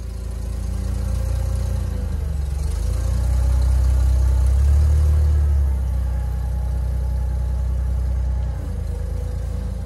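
Engine of a large forklift carrying a boat, running steadily. It works harder and louder for a few seconds in the middle, then eases off.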